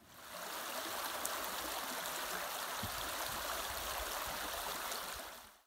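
Shallow forest stream flowing steadily over stones, an even rushing of water that fades out near the end.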